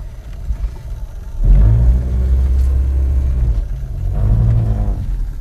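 A car engine accelerating, loud and low: one long surge starting about a second and a half in, then a shorter one near the end.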